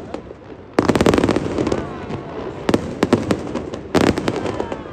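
Aerial fireworks bursting: after a brief lull, a dense volley of rapid crackling bangs about a second in, another cluster of cracks near three seconds, and a fresh volley near four seconds as crackling white shells open.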